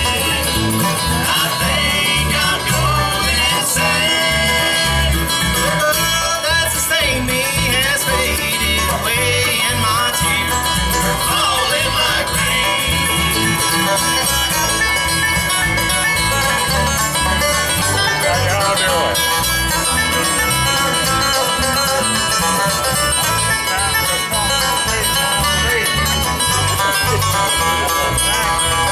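A bluegrass band playing live on banjo, fiddle, mandolin and acoustic guitar, an instrumental passage with no singing.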